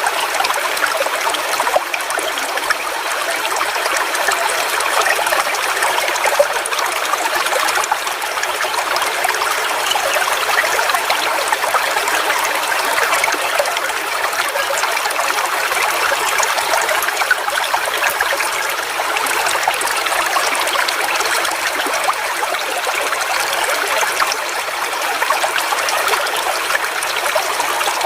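Small forest waterfall splashing and trickling steadily: a constant hiss of falling and running water with fine splashy detail, little deep rumble.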